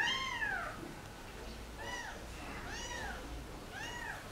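Young kitten mewing four times, each high mew rising then falling in pitch. The first is the longest and loudest, and three shorter mews follow about a second apart.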